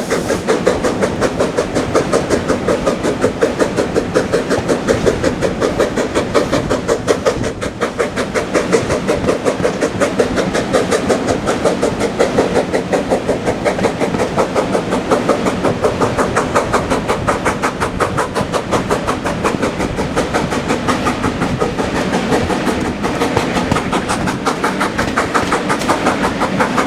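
Steam locomotive running, with a fast, even rhythmic beat that keeps up steadily.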